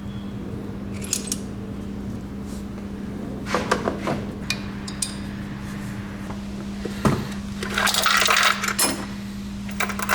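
Metal tools and car parts clinking and clattering in scattered knocks, with a denser run of metallic clatter about eight seconds in, over a steady low hum.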